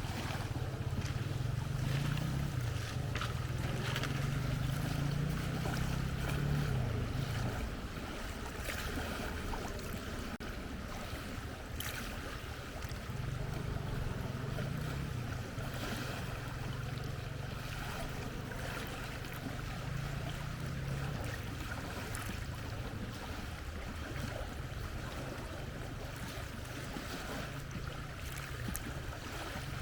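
Outdoor ambience: a steady rush of wind-like noise under a low hum that swells for the first few seconds, drops away, and comes back in the middle, with scattered faint clicks.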